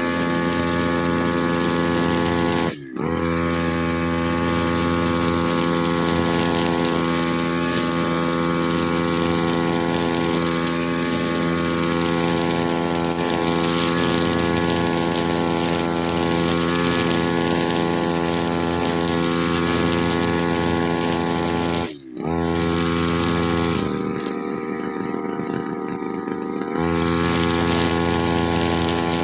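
Brush cutter engine running steadily at high speed, with two very brief dips, about three seconds in and again after about twenty seconds, and a quieter, duller stretch of about three seconds near the end.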